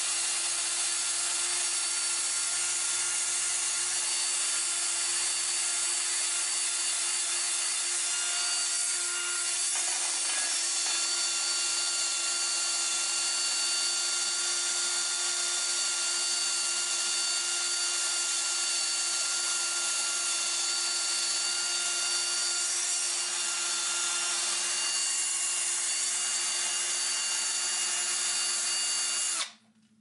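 Handheld drill spinning a wire wheel brush against the steel yoke of a driveshaft: a steady motor whine over a scratchy hiss, the wire brush scrubbing off rust and grime to clean the U-joint seat before a new U-joint goes in. The drill stops suddenly just before the end.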